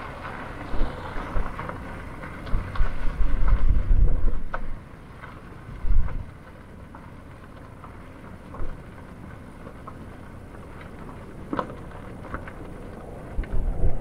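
Wind buffeting the microphone in irregular low gusts, heaviest in the first six seconds and calmer after, with a few faint clicks.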